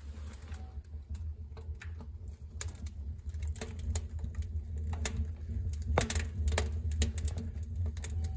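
Wood fire crackling and popping in the firebox of a barrel stove as it catches and picks up. The crackles grow louder and more frequent toward the end, over a low steady rumble.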